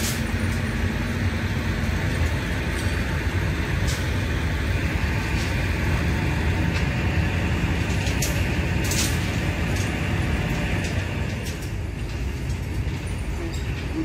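Steady low engine rumble of construction-site machinery, with a few scattered sharp metallic clicks and taps from steel rebar being handled and tied on a pile cage.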